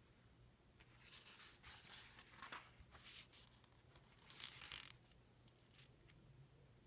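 Pages of an old newsprint comic book being turned by hand: a faint rustle and swish of paper in several bursts from about one to five seconds in, loudest twice in the middle.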